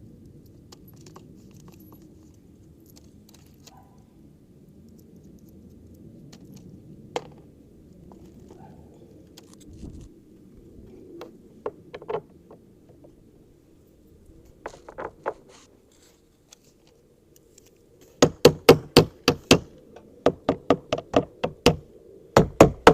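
Bolts being fitted into the metal frame of a garden dump cart: scattered light clicks and taps of metal parts, then, about three-quarters of the way in, a loud, even run of sharp knocks, about five a second, as the bolts are worked in.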